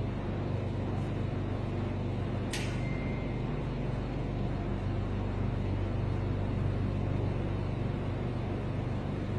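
Steady low mechanical hum of background machinery, with one sharp click about two and a half seconds in.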